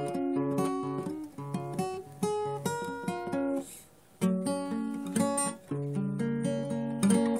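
Acoustic guitar playing a melody in picked notes, which break off briefly about halfway through and then resume.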